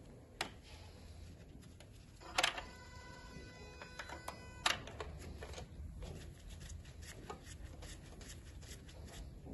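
Hand-work noises on an engine's spark-plug well as a compression gauge and plug lead are moved between cylinders: a few sharp clicks and knocks, one about two and a half seconds in followed by a steady ringing tone that stops with another click about two seconds later, then a run of light ticks and rattles.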